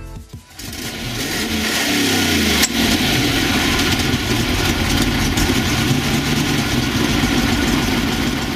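Lamborghini Jalpa's 3.5-litre V8 starting and revving up in a rising sweep, with a sharp click about two and a half seconds in, then running steadily.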